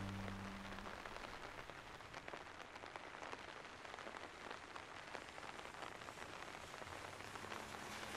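Faint, steady rain falling on a surface: an even hiss threaded with many small drop ticks. The last low notes of a string orchestra die away in the first second.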